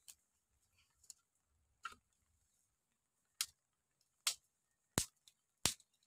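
Dry sticks being snapped by hand for firewood: seven sharp, separate cracks about a second apart, the later ones louder.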